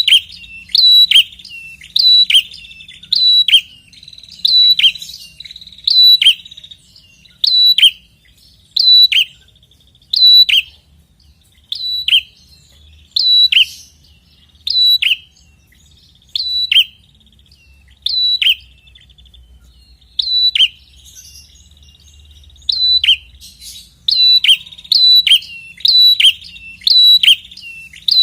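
Ashy tailorbird (prenjak kepala merah) calling insistently, played as a lure recording: a long run of loud, sharp, separate notes, each dropping in pitch, about one a second. The notes space out in the middle and come faster again near the end.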